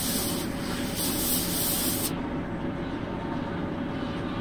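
Airbrush spraying paint onto a balsa fishing lure: a steady hiss of air and paint that cuts off suddenly about two seconds in. A steady low rumble runs underneath.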